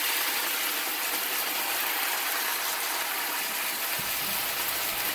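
Steady sizzling from a hot skillet as freshly poured water and coconut milk bubble around a whole red snapper and vegetables. A low knock comes about four seconds in as the pan is gripped by its handle.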